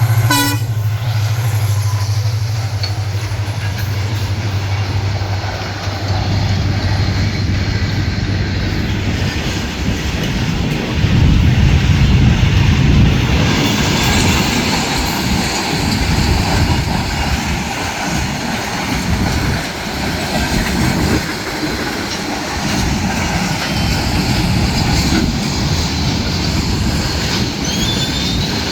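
Empty goods train wagons rolling past on steel rails, rattling and knocking over the rail joints. A steady low hum is heard for about the first nine seconds, and short high wheel squeals come near the end.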